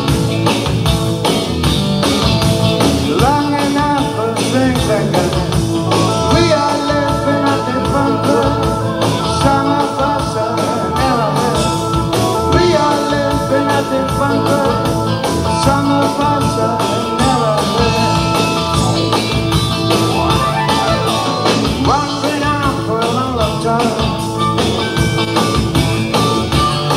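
Live rock-and-roll band playing with a steady beat: drum kit, electric bass and electric guitar, with a man singing.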